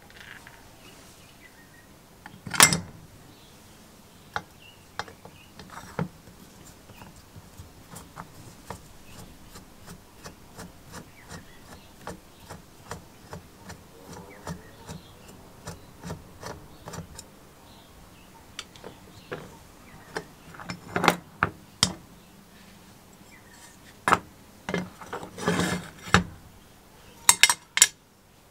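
Hand screwdriver working small screws out of an old GEC telephone bell's base plate: a run of light, even ticks, with sharper clicks and clinks as small metal parts are lifted off and set down. The loudest click comes about three seconds in, and there is a brief scraping rub and a cluster of clicks in the last few seconds.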